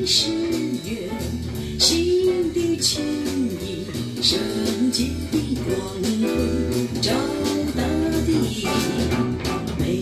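Recorded small-band music with a plucked guitar and a sliding melody line over a bass part, kept in time by a light cymbal beat about once a second.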